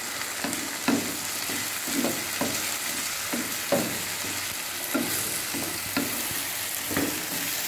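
Vegetables and freshly added curd sizzling in a nonstick pan while a wooden spatula stirs them, scraping and knocking against the pan about twice a second.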